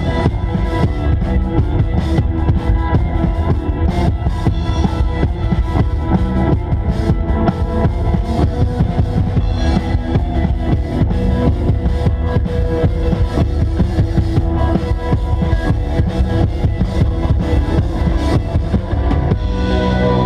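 Live post-rock band playing: a full drum kit pounding under guitars. Near the end the drums stop and the music settles into held, ringing guitar chords.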